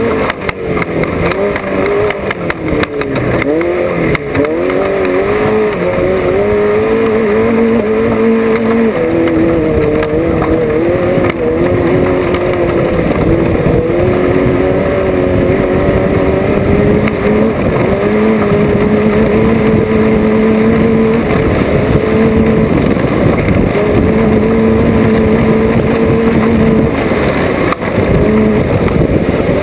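Off-road race car engine running hard, its pitch dipping and climbing over the first few seconds and then holding fairly level, over steady rattling and knocking.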